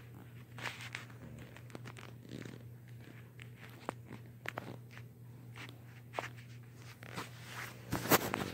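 Handling noise from a phone held against a fuzzy surface: scattered soft clicks and rustles, with a louder cluster of knocks about eight seconds in, over a steady low hum.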